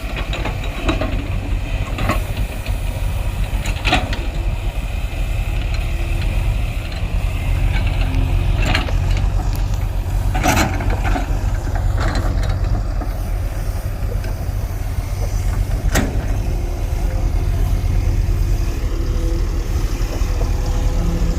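Heavy diesel construction machine engine running steadily with a deep rumble, with sharp metallic clanks now and then, about five over the stretch.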